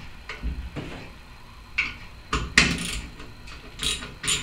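Irregular metal clinks and knocks as the 8 mm valve-cover bolts on a Briggs & Stratton overhead-valve engine are loosened with a socket tool: about half a dozen sharp taps, the loudest about two and a half seconds in.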